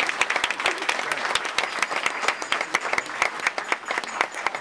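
A roomful of guests applauding, many hands clapping in a dense, steady patter.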